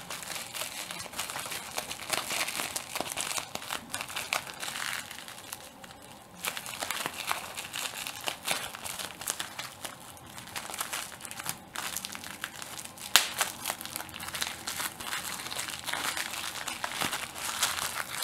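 Plastic bubble wrap being crumpled and popped, a steady crinkling studded with sharp pops. One pop about 13 seconds in is much louder than the rest, and the crinkling eases off briefly around 6 seconds.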